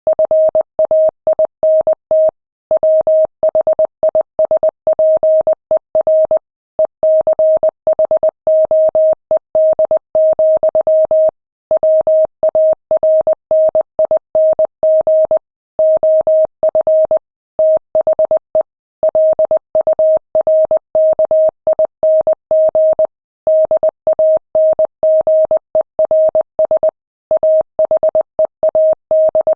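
Morse code sent at 20 words per minute: a single steady mid-pitched beep keyed on and off in dots and dashes, with short pauses between words.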